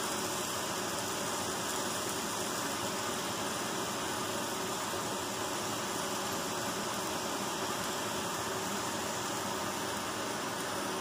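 Steady hiss from a stovetop frying pan of chicken and green pepper pieces on a gas burner.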